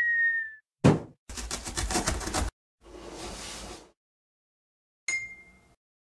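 Cartoon sound effects of an animated channel intro: a brief falling whistle, a sharp thump just under a second in, about a second of rapid rattling clatter, a softer hiss, then a bright ringing chime about five seconds in.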